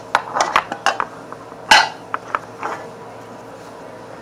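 Plastic slime container handled close to the microphone, its lid being closed with a run of small ratcheting clicks and knocks. One louder knock comes about one and a half seconds in.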